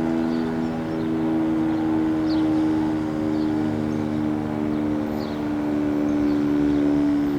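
Federal Signal 2T22 dual-tone electromechanical outdoor warning siren sounding its steady Alert signal: two held tones together forming a chord, with no rise or fall in pitch, swelling gently in loudness every couple of seconds.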